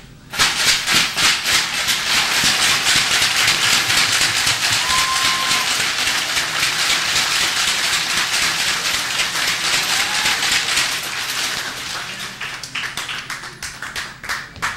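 Audience applauding, breaking out suddenly about half a second in as dense clapping that thins into scattered claps near the end, with a brief high whoop about five seconds in.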